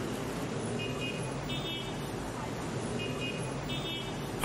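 Steady street traffic noise, with short high-pitched toots that come in pairs about a second in and again about three seconds in.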